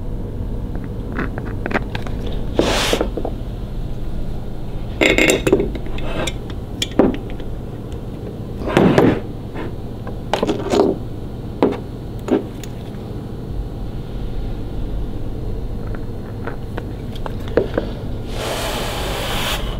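Small metal parts and tools clinking, knocking and scraping on a wooden workbench as bolts and risers are handled, over a steady low hum. A short hiss lasting about a second comes near the end.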